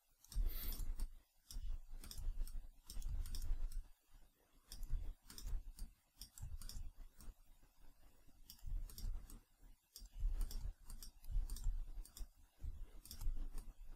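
Irregular computer mouse clicks while retouching with a brush in Photoshop, with soft low bumps of the hand and mouse on the desk between them.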